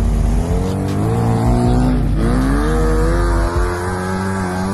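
Off-road Yugo's engine revving hard under load, its pitch climbing steadily. It drops sharply about two seconds in and climbs again.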